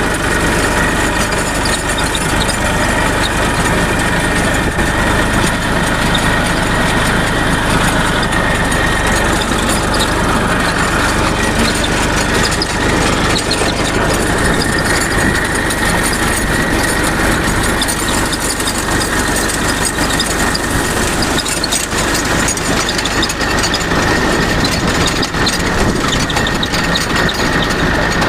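Tractor engine running steadily, with a noise from the universal-joint cross, which the owner takes as the source of the trouble.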